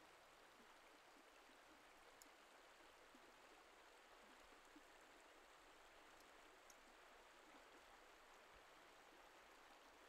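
Near silence: a faint, steady hiss with no distinct events.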